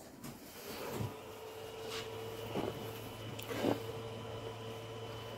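Tronxy XY2 Pro 3D printer humming steadily while it flashes new firmware, with a few faint clicks. The hum comes up about a second in and then holds.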